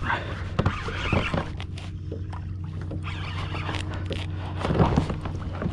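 Sounds of a kayak on the sea: water sloshing against the hull with short knocks and clicks, over a steady low hum. It swells louder about a second in and again near the end.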